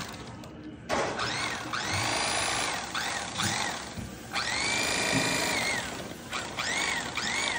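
Electric carving knife running in several short bursts as its reciprocating blades slice into the breast of a fried turkey, the motor's high whine rising and falling in pitch within each burst.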